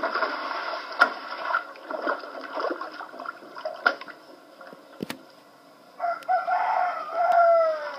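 Water splashing and sloshing as clothes are scrubbed and wrung in a stone wash basin. About six seconds in, a rooster crows: a short note, then a longer one that falls in pitch.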